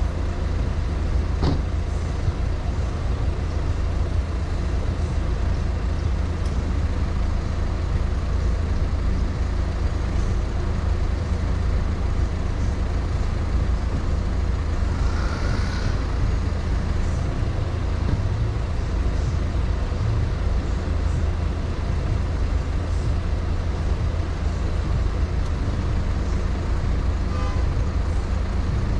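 Steady low rumble of a car driving through town traffic: engine and tyre noise. A brief higher-pitched sound comes about halfway through.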